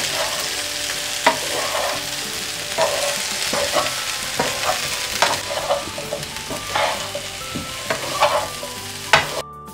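Cauliflower florets and diced potatoes sizzling in vegetable oil in a frying pan while a wooden spatula stirs them, with scraping and light knocks against the pan. The sound cuts off abruptly just before the end.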